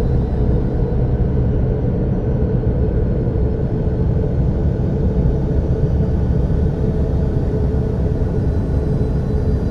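Dark ambient 'planet sound' drone: a loud, steady, deep noisy hum with faint held tones above it, unchanging throughout.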